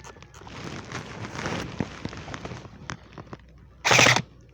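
Scuffing and rustling of movement, then near the end one loud, short full-auto burst from an airsoft rifle.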